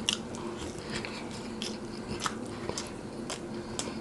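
A man biting into and chewing a sandwich close to the microphone, with sharp moist mouth clicks about twice a second.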